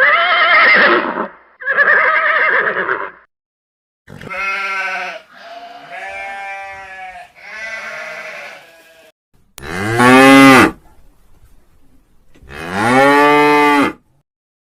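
Livestock calling: a series of about six separate calls, each a second or two long with short gaps between them. The last two are lower-pitched and arch up and down.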